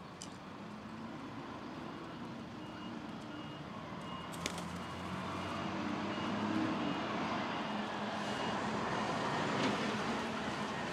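A nearby motor vehicle's engine running, growing louder about halfway through, with a thin high beep repeating at an even pace over it and one sharp click about four seconds in.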